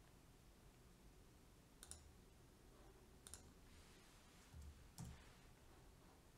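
Three faint computer mouse clicks, spaced about one and a half seconds apart, over near silence.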